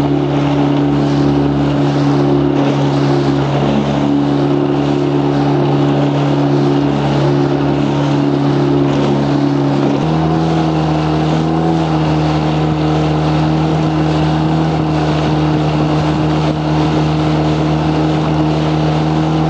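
Outboard motor of a 12-foot fibreglass boat running steadily at speed, with water and wind noise underneath. About halfway through the engine note steps up to a slightly higher pitch.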